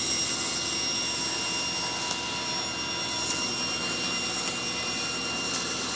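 Table saw running at full speed and cutting steadily as a thin glued-up panel of wooden diamond pieces is fed through, ripping a narrow strip off its edge.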